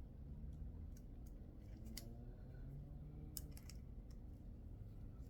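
Faint, scattered light clicks and ticks of tools and small metal coilover parts being handled, a few irregular clicks over a low steady hum.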